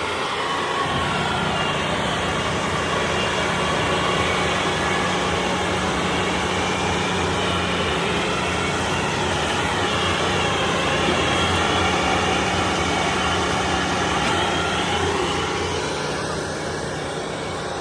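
Combine harvester working in wheat: diesel engine and threshing machinery running steadily under load, with some gliding whine in pitch, easing off slightly near the end.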